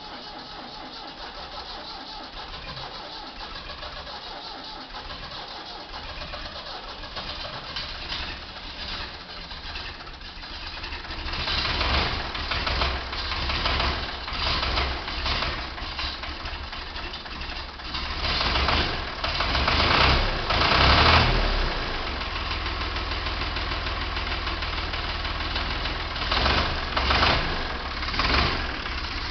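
Ford 4600 tractor's three-cylinder engine starting from cold: it comes to life and grows loud about eleven seconds in, runs unevenly, is loudest briefly around twenty seconds, then settles into a steady idle.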